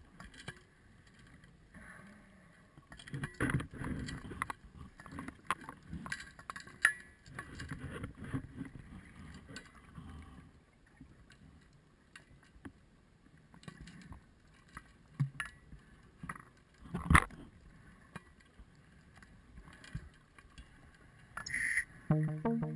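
Scattered knocks and clicks with short bursts of rustling noise, the sharpest knock about seventeen seconds in. Music starts just before the end.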